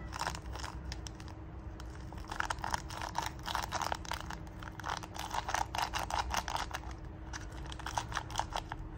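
Plastic cheese-powder sachet crinkling and crackling in quick, irregular bursts as it is squeezed and shaken empty into an instant-noodle cup, busiest in the middle.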